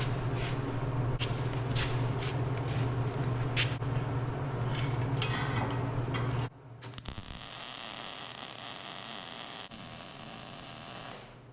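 Electric arc welder running on spring steel: a steady electrical buzz with crackling that stops abruptly about six and a half seconds in. A quieter steady hiss follows.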